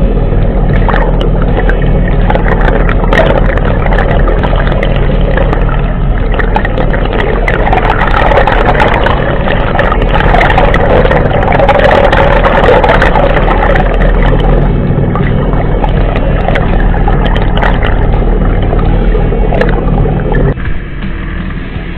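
Suzuki 2 hp water-jet boat engine idling, heard from underwater as a steady low hum under loud rushing water noise. The sound drops and goes duller abruptly near the end.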